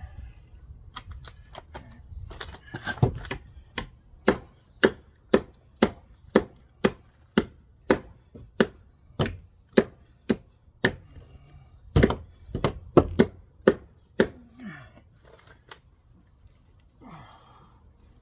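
Hammer striking a chisel over and over, about two blows a second for some thirteen seconds, cutting out wood in a wall's stud framing. The blows stop about fourteen seconds in, followed by a few faint scraping sounds.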